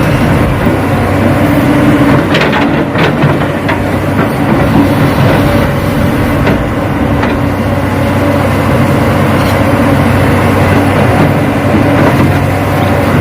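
Radio-controlled Hitachi model excavator working, with a steady mechanical drone and a few short clicks about two to three seconds in.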